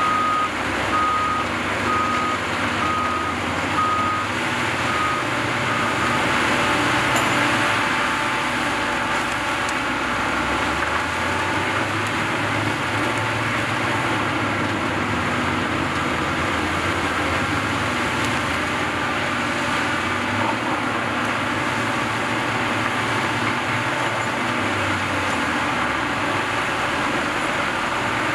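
Peterson 1700D horizontal grinder running steadily under load while grinding waste wood. A backup alarm beeps about once a second through the first six seconds or so, growing fainter.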